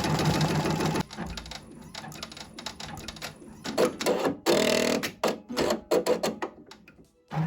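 Domestic sewing machine stitching at speed, stopping about a second in, followed by a series of separate clicks and knocks with one longer louder rattle about halfway through.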